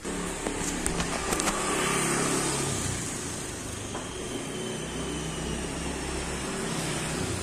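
Engine of a small cargo truck running as the truck pulls slowly into a yard, its low hum shifting a little in pitch, with a few sharp clicks in the first second and a half.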